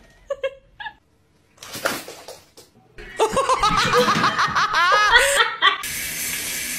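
A person laughing hard in a quick run of bursts for a couple of seconds, from about three seconds in, followed by a steady hiss.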